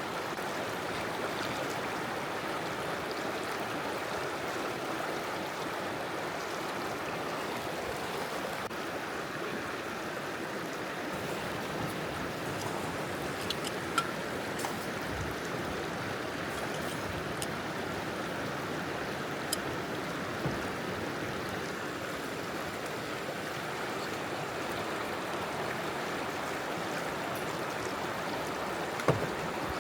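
River water rushing steadily over stones, with a few brief sharp clicks, the loudest about halfway through and near the end.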